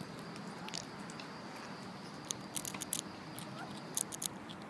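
A squirrel handling the camera right at the microphone: short, sharp clicks and scratches in quick clusters from about two seconds in.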